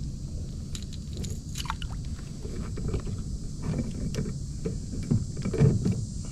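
Handling noise as a small largemouth bass is unhooked from a half-ounce Rat-L-Trap lipless crankbait: light clicks and rattles in the first couple of seconds, then several dull thumps, the loudest near the end, over a steady low rumble.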